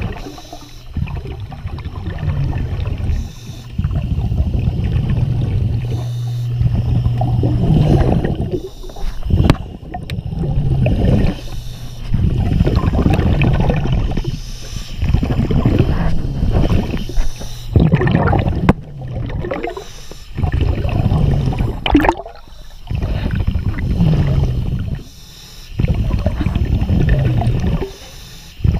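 A diver's scuba regulator underwater: bursts of exhaled bubbles rushing and gurgling out every few seconds, with short quieter breaths between them. A steady low hum runs under the first seven seconds or so.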